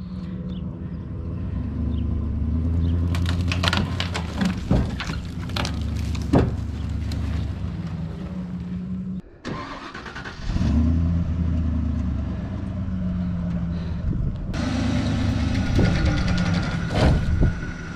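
Pickup truck engine running under load as it drags a timber log off a trailer by a chain, with sharp knocks of the log and chain between about three and seven seconds. A steady whine joins the engine in the last few seconds.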